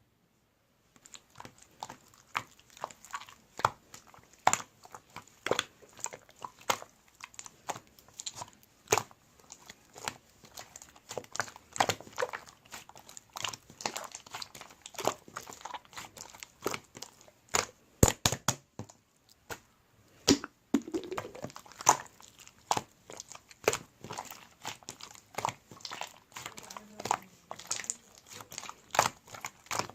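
Pink clay slime being squeezed and kneaded by hand, giving irregular sharp clicks and crackling pops, a few every second, starting about a second in.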